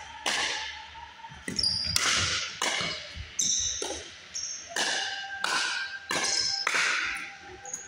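A fast pickleball rally: about nine sharp pocks of paddles hitting the plastic ball, one every half-second to second, echoing in a large gym. Short high squeaks of sneakers on the hardwood floor come between the hits.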